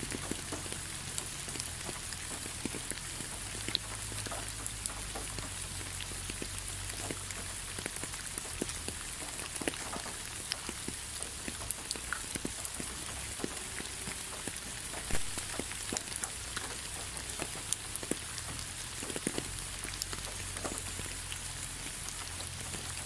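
Steady rainfall: an even hiss with many separate drops ticking close by.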